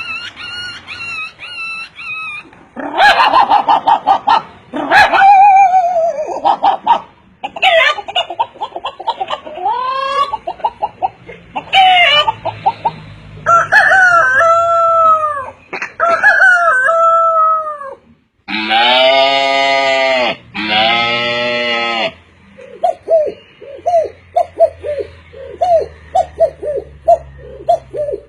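A man imitating animal calls with his voice: a series of varied pitched calls and glides. Two long, loud calls come a little past the middle, followed by a run of short, quick calls near the end.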